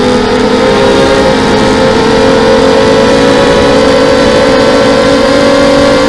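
The four RCX 1804 2400kv brushless motors and 5x3 carbon composite props of a 250-size FPV quadcopter give a loud, steady whine, heard from on board. Several close pitches run together, and they edge slightly higher in the first couple of seconds.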